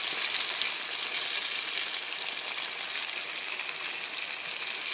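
Chicken pieces frying in hot oil, a steady even sizzle.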